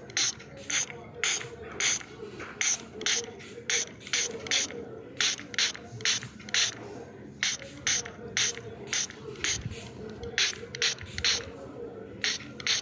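A series of short, sharp clicks, about two a second at an uneven pace, pausing briefly near the end.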